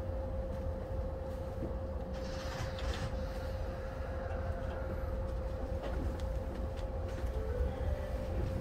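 Yamanote Line electric commuter train heard from the front cab: a steady low rumble with a constant hum running under it, and a brief hiss about two seconds in.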